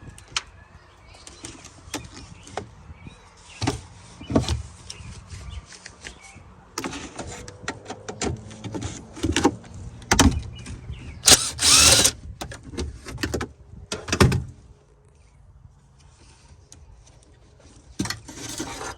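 Tools working loose a car's trunk latch hardware: a string of metal clicks, knocks and scraping, with a louder harsh rasp lasting about a second, a little past the middle.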